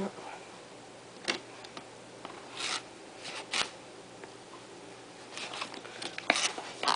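Short rustles and scrapes of a laptop being slid out of its cardboard box by its pull tab, a few at first and then a busier cluster near the end.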